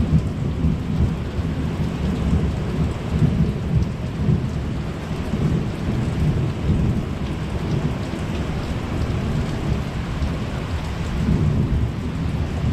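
Thunder rumbling and rolling on without a break, over steady rain.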